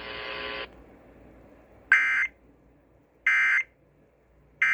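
Emergency Alert System end-of-message data bursts on broadcast radio: three short digital bursts, each about a third of a second long and about a second apart, marking the end of the warning. A faint steady buzz stops in the first second.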